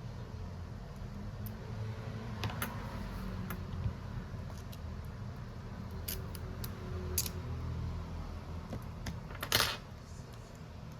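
Small repair tools clicking and tapping against a phone and the bench, over a steady low hum. A short, louder noise comes near the end.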